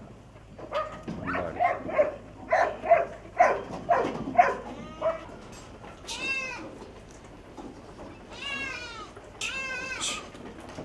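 Goats bleating: a quick run of short calls over the first five seconds, then three longer, quavering bleats in the second half.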